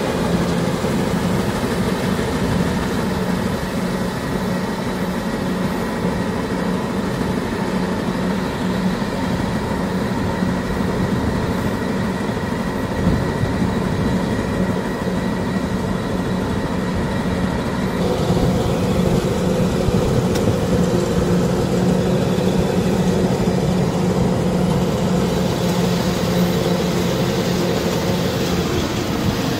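Diesel engine and threshing machinery of a Kubota DC-105X rice combine harvester running steadily under load, with a strong steady hum. Its tone shifts slightly about two-thirds of the way through.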